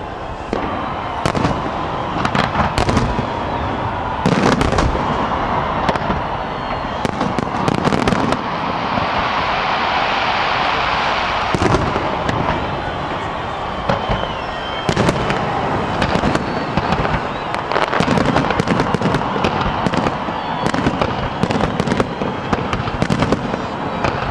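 Aerial fireworks display: a rapid, irregular string of sharp bangs from shells bursting overhead, with a denser, steadier stretch near the middle.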